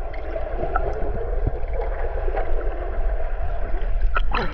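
Pool water sloshing and lapping around a waterproof action camera, with a steady low rumble underneath.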